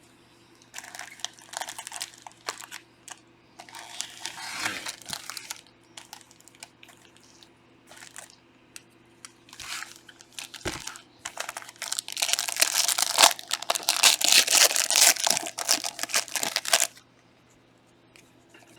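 Trading card pack wrappers being torn open and crinkled, in short bursts and then a longer, louder stretch of crinkling near the end.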